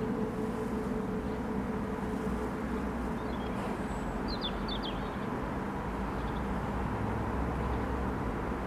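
Steady outdoor background rumble of distant traffic, with a small bird giving a few quick chirps about halfway through.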